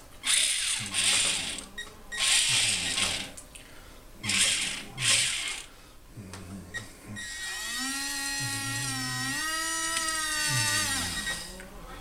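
Small electric gear motors of a radio-controlled Elenco OWI toy forklift robot whirring in about five short bursts as its tracks are driven, then a steadier gear-motor whine of about four seconds that wavers up and down in pitch.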